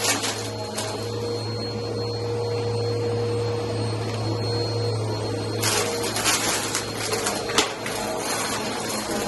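Vacuum cleaner running with a steady hum. From about six seconds in, the hum changes and quick clicks and crackles come in as bits of a debris mix rattle up into it.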